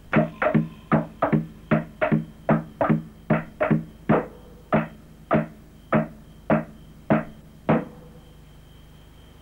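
Opening music of struck, pitched percussion: a regular run of notes, about three a second, that spaces out and stops about eight seconds in.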